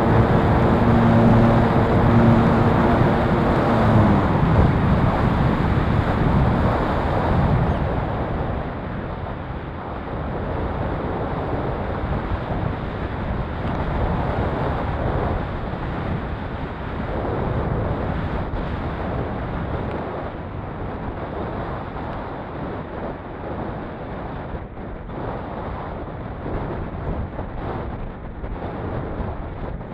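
Air rushing over the onboard camera of an ASW28 RC glider in flight, with the steady hum of its electric motor and propeller for the first few seconds, cutting off about four seconds in. The rush then carries on alone and gradually eases as the glider slows.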